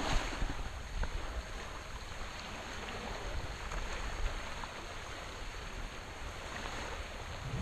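Calm sea water lapping and washing along the sandy shore, a steady even wash with a light wind.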